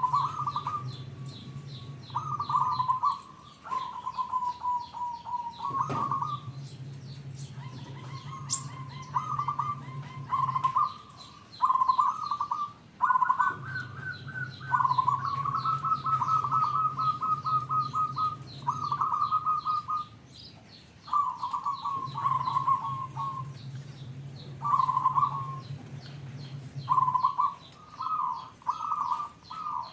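Zebra dove (perkutut) cooing in repeated trilled phrases, each a second or two long with short pauses between. Faint high chirps sit above it, and a low hum comes and goes every few seconds.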